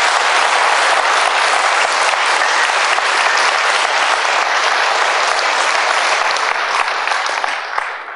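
Large audience applauding, a dense, steady clapping that dies away near the end.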